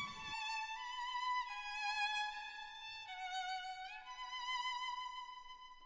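Soft background music: a slow violin melody of long held notes, each moving to a new pitch every second or so, fading out near the end.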